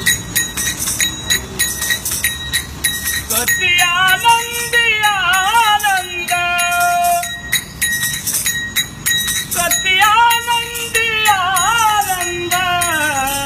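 Devotional singing in two long, gliding melodic phrases, over a steady rhythm of small jingling metal percussion, like the clappers and bells that accompany a Vasudev singer's chant to Vitthal.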